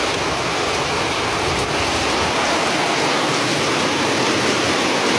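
Heavy rain pouring down, a steady, loud hiss.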